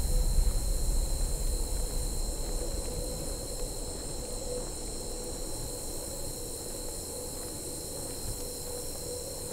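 Chorus of night insects: a steady, high shrill made of several held pitches. A low rumble fades away over the first few seconds.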